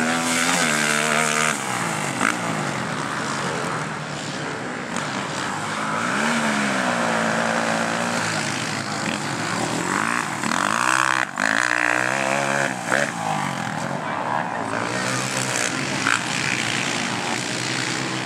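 Racing quad engines revving hard on a motocross track, the pitch climbing and dropping again and again as the riders accelerate, shift and back off, with the strongest run-ups near the start, about six seconds in and around eleven to thirteen seconds in.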